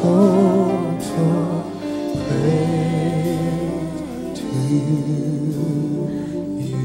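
Gospel worship song: sung melody with vibrato on held notes over instrumental accompaniment.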